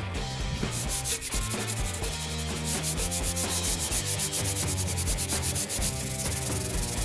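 P180 sanding disc rubbed by hand back and forth along a wooden frame strip: a fast, even run of scratchy sanding strokes that starts about a second in.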